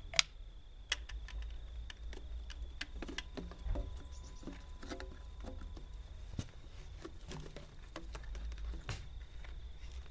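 Plastic waste-pipe fittings clicking, tapping and scraping as gloved hands push them together and onto the pipes, with a sharp click about a quarter second in, over a steady low rumble.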